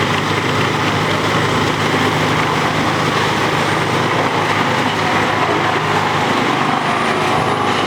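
Large wood chipper running: a loud, steady mechanical din with no pauses.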